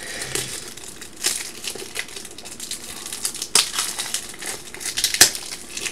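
Plastic crinkling and rustling as a pack of 75-point card holders is handled, with three sharp clicks along the way.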